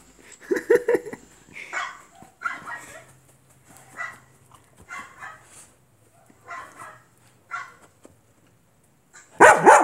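Dogs barking: a run of short barks roughly once a second, with much louder barks near the end.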